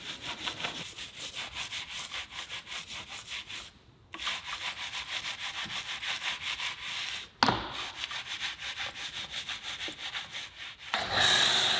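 Bristle wheel brush scrubbing inside a foam-covered alloy wheel in quick, even back-and-forth strokes, a soapy rubbing sound. A short break comes about four seconds in. Near the end a loud steady hiss of spray takes over.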